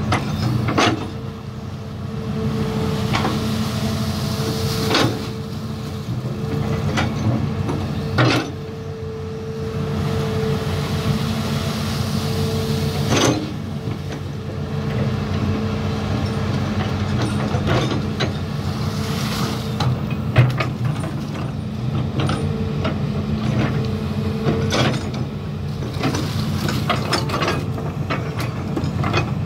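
Hitachi Zaxis 210F amphibious excavator's diesel engine running steadily under working load as it digs mud. Occasional sharp clanks and knocks come from the machine at uneven intervals.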